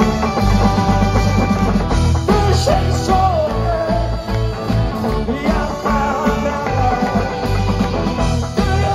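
Live rock band playing loud through a club PA, heard from within the crowd: drum kit and bass keeping a steady beat under electric guitars, with a gliding melodic line over the top.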